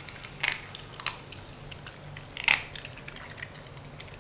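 A small dog crunching raw chicken wing pieces, bones and all, from a plastic bowl: scattered sharp cracks and clicks, the loudest about two and a half seconds in.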